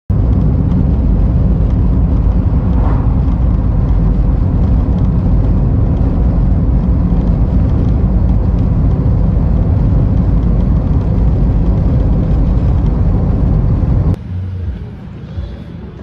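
Loud, steady road and engine noise of a car driving, heard from inside the cabin. It cuts off suddenly near the end, giving way to a much quieter outdoor ambience with faint voices.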